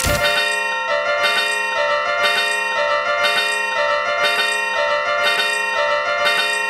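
Railway level-crossing warning bells clanging steadily at about two strikes a second, several ringing tones sounding together.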